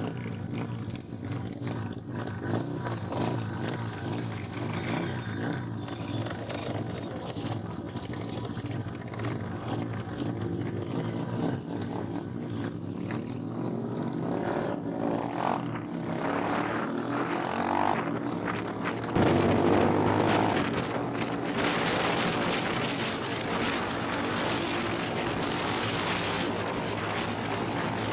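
Motorcycle engine running steadily while riding, with a steady drone of engine tones. About two-thirds of the way through, a loud rush of wind noise on the microphone joins it and stays.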